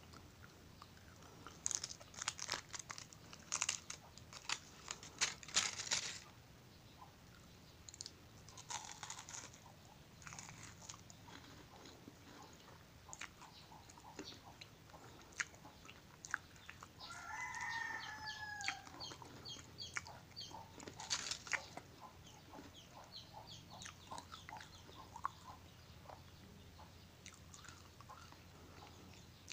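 Close-up crinkling of Ferrero Rocher gold foil wrappers and crunching of the wafer-and-hazelnut chocolates, in short irregular bursts. About seventeen seconds in, a rooster crows once in the background for about two seconds.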